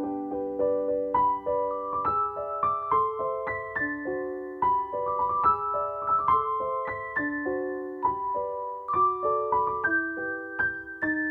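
Background music: a gentle piano melody of plucked-sounding notes, several a second, over sustained chords.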